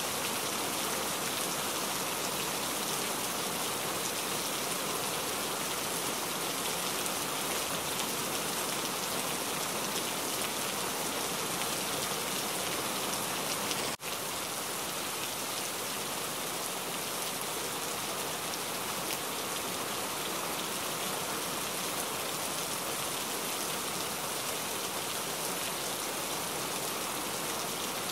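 Steady, even rain-like hiss that dips briefly about halfway through.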